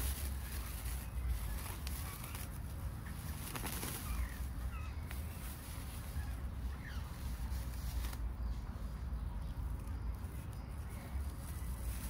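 Clear plastic cling film crinkling and rustling as it is pulled and unwound from around a bonsai's exposed roots and rock. Faint bird chirps sound in the background.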